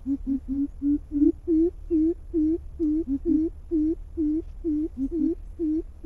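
Greater coucals calling: a long run of deep, hollow hoots, about three a second, each note dipping and rising in pitch, with a second, lower voice overlapping a few times.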